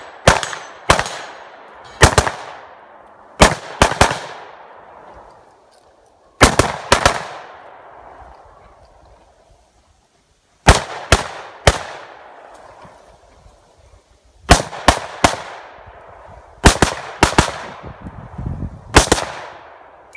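Rapid rifle fire on an IPSC practical-shooting course: shots in quick pairs and threes, each with a rolling echo that dies away before the next group.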